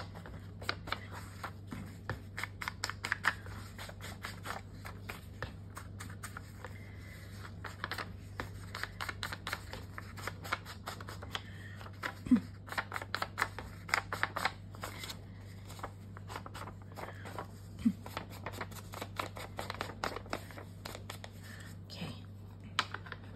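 Ink blending tool dabbed and swiped along the edges of a sheet of paper: a quick, irregular run of scratchy, papery strokes and taps, with the sheet being handled and turned, over a low steady hum.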